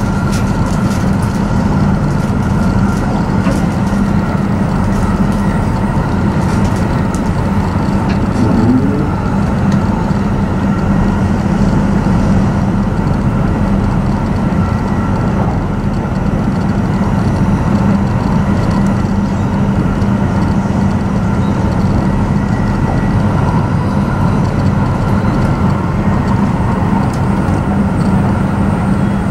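Steady running noise of an E7 series Shinkansen train heard from inside the passenger cabin: an even rumble with a constant low hum and fainter higher steady tones.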